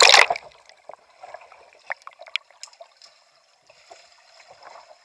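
A kayak capsizing into pool water for a roll, with a loud splash in the first half second. After that the deck-mounted camera is underwater, and the rest is muffled bubbling with scattered clicks and gurgles.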